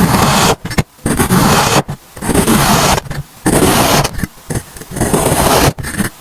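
Kinetic sand scraped and crushed close to the microphone: a loud, gritty rasp in about six strokes, each under a second, with short pauses between them.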